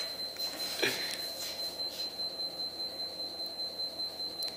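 A Toyota warehouse forklift's electronic warning tone: one steady, high-pitched beep held without a break, with a slight fast flutter.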